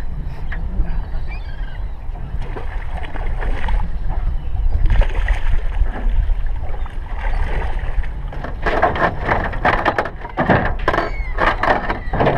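Wind buffeting the microphone and water sloshing against a small boat's hull, with a run of quick clicks and rattles in the last few seconds.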